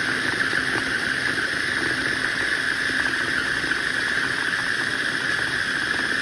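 Small electric food processor running steadily, its blade chopping cooked brisket, with a constant high motor whine.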